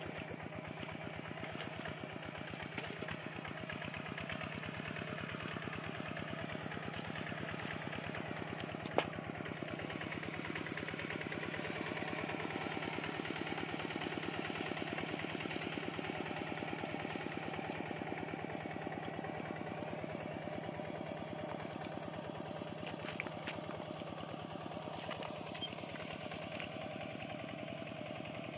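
Two-wheel walking tractor's engine running steadily with an even firing pulse, a little louder through the middle. A single sharp click about a third of the way through.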